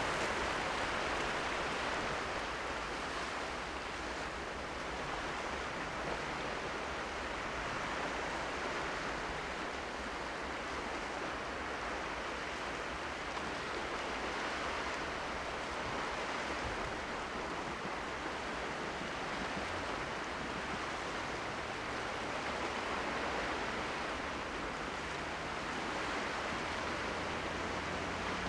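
Sea surf washing steadily on the shore, swelling and easing slowly every several seconds.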